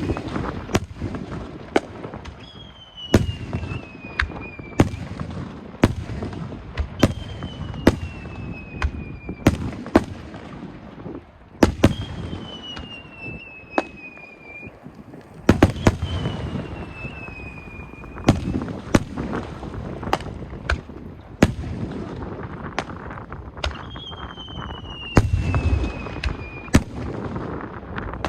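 Aerial fireworks display: a rapid run of sharp shell bursts and crackle, several bangs a second at times, with a rumble between them. Every few seconds a whistling shell sends up a whistle of about two seconds that falls slightly in pitch.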